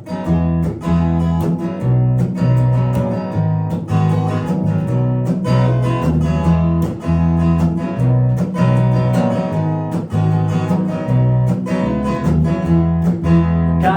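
Instrumental intro of an indie-folk song: acoustic guitar strummed in a steady rhythm over low notes that change every second or so.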